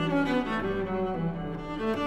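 Background instrumental music: a run of sustained, pitched notes that change every fraction of a second.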